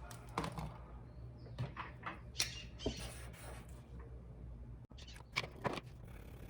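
Paper being handled and marked on a desk: scattered light scratches and rustles, a few clearer ones about two and a half seconds in and a pair near the end, over a faint low hum.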